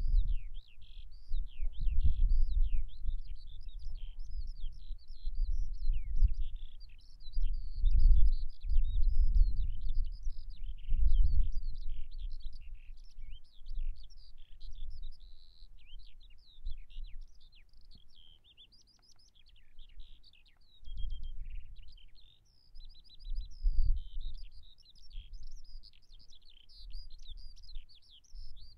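Songbirds singing continuously: a dense run of quick, high chirps and warbles. Underneath, a low rumble swells and fades, loudest in the first dozen seconds and again later.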